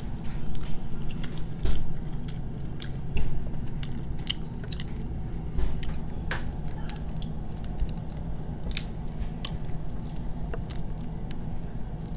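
Eating sounds: chewing and biting, with scattered sharp clicks and crackles as boiled shrimp shells are peeled by hand, over a steady low hum.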